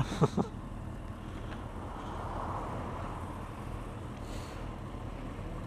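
Motorcycle engines idling at traffic lights: a steady low rumble with road-traffic noise around it.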